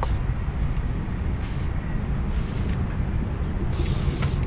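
Four short hisses of an aerosol spray can as black tag letters are sprayed, the last one the longest, over a steady low rumble of road traffic.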